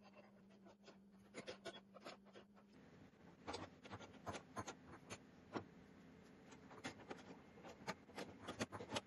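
Scattered light metallic clicks and ticks of hand tools, a wrench and an L-shaped key, turning a bolt through a steel corner bracket on a weathered wooden cart frame. The clicks come irregularly and grow busier after about three seconds.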